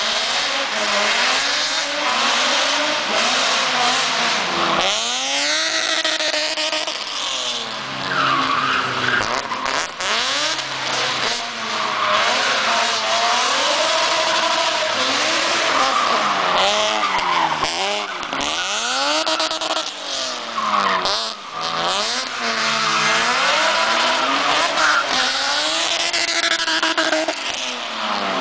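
Drift car's engine revving hard, its pitch climbing and dropping again and again with the throttle, over the squeal and scrub of the rear tyres sliding sideways through the corners.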